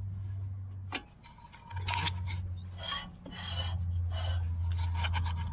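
Ratchet wrench clicking in quick runs as bolts on a brake caliper are tightened, over a low steady hum.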